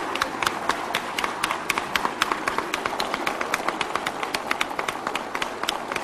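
A group of parliament deputies applauding, with many sharp separate claps several times a second.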